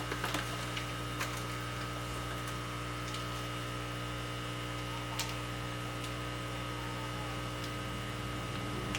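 Steady electrical hum with a stack of even low tones, with a few light clicks at the start and one more click about five seconds in.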